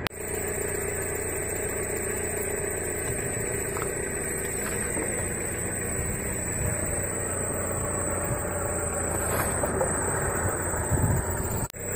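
Tata Indica car's engine running steadily at low speed as the car creeps forward, with a brief drop in sound near the end.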